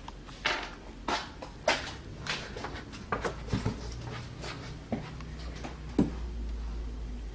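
Small metal bolts being unscrewed by hand and lifted off a plastic cover in a car's engine bay: irregular light clicks and scrapes, about eight in all, over a low steady hum.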